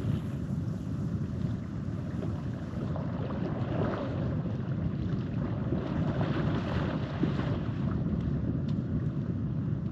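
Steady wind buffeting the microphone, with small waves washing at the water's edge.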